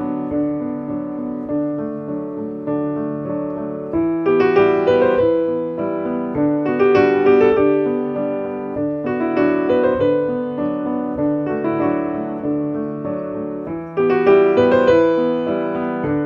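Background piano music, a gentle melody over chords, that grows fuller and louder about four seconds in and again near the end.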